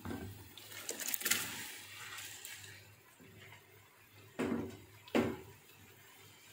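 Raw rice poured from a plastic bowl into a pot of boiling stock, a soft rushing pour over the first couple of seconds. Two short knocks follow about four and five seconds in.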